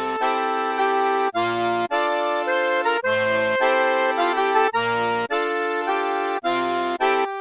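Background music with held chords and a melody, and a low bass note coming back about every second and a half.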